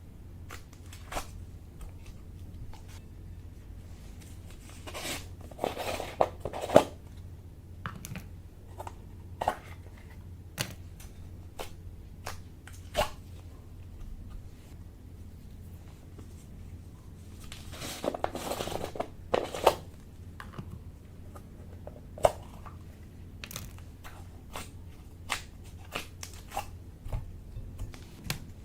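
Slime being worked by hand with things mixed into it: scattered sharp clicks and pops, and two longer spells of crackling, about five seconds in and again at about eighteen seconds.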